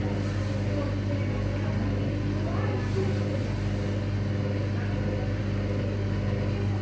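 Hoover washing machine on its spin cycle, the drum spinning at a steady speed with a constant hum.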